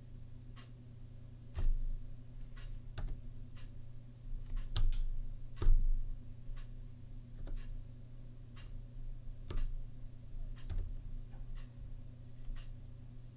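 Slow, irregular keystrokes on a Zilpzalp ergonomic keyboard fitted with Kailh (Kaihua) Twilight low-profile switches: sharp clicks about one or two a second, a few of them louder, over a steady low hum.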